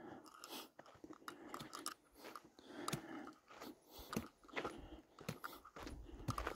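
Footsteps crunching on a dry, gritty dirt trail, an irregular series of short steps. A low rumble comes in near the end.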